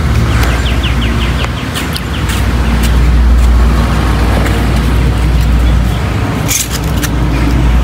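Steady low rumble of wind buffeting the microphone outdoors, with a bird's quick run of about ten short chirps in the first couple of seconds and a brief hiss about six and a half seconds in.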